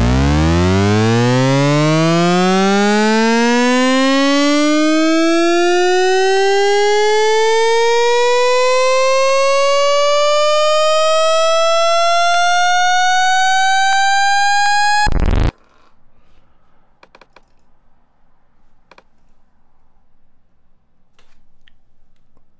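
Synthesizer pitch riser from Ableton Live's Operator: one held note, rich in overtones, sweeping upward in pitch, fast at first and then more gradually, for about fifteen seconds before cutting off abruptly. Faint clicks follow.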